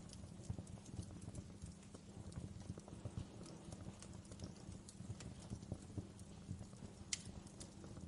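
Wood fire crackling in a fireplace: a steady run of small crackles over a low rumble of flames, with a sharper pop about seven seconds in.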